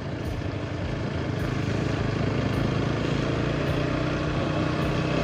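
Motorcycle engine running steadily at low road speed, with a steady rush of wind and tyre noise on the wet road.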